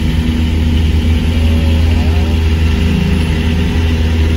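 Vehicle engine running at low speed in slow traffic, a steady low drone heard from inside the cab.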